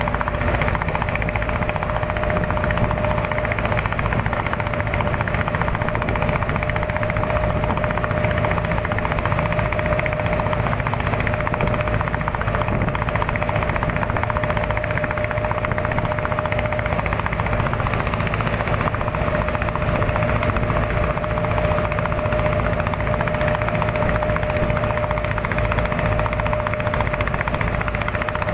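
A small engine running at a steady speed, a constant rough drone with a steady hum above it.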